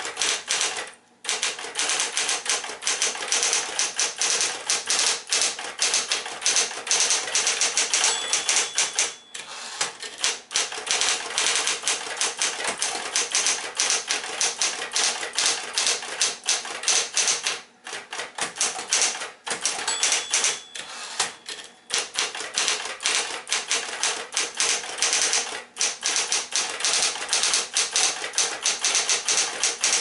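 Smith-Corona Coronet Electric 12 electric typewriter typing at a fast, steady pace, rapid key strikes with a few short pauses, over the steady hum of its motor. A short bell-like ring sounds three times, about twelve seconds apart.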